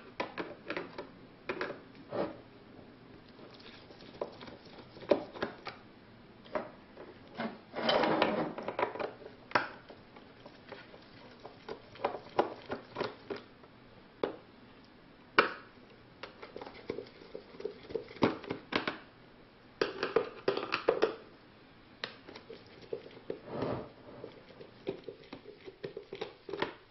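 Phillips screwdriver working the small screws out of the plastic back cover of a 1999 Toyota Land Cruiser instrument cluster: irregular clicks and light knocks of the tool and fingers on the plastic housing, with a few louder clatters.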